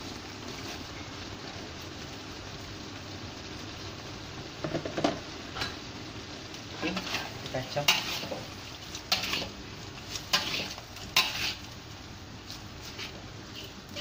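Rice vermicelli stirred into simmering broth in a wok: a steady bubbling hiss, with a metal spatula scraping and clattering against the wok in a series of short strokes from about five seconds in.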